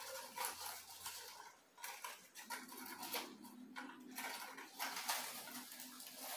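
Handling noise from a potted Nepenthes pitcher plant being lifted and moved: irregular rustling of its leaves with light knocks of its pot.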